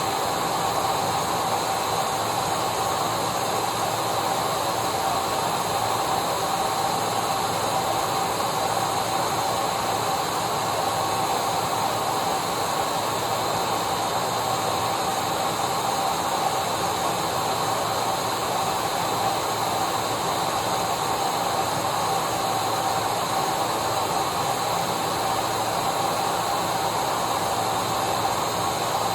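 Vacuum cleaner running steadily: an even, unchanging whoosh of air with a steady motor hum through it.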